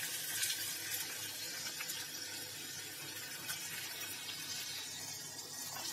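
Mutton pieces frying in ghee in a steel pot, a steady soft sizzle with garlic cloves and dried red chillies just added.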